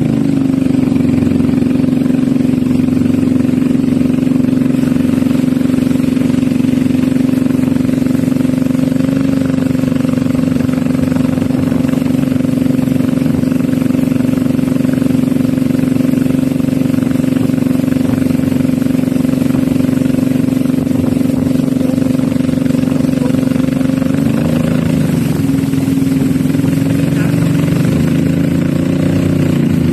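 Small boat engine running steadily at a constant speed. Its pitch dips and wavers briefly about 24 seconds in and again near the end.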